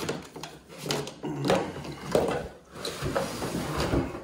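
Cardboard box and plastic vacuum parts rustling, scraping and knocking as a new upright vacuum cleaner and its hose are pulled out of the box, in uneven bursts.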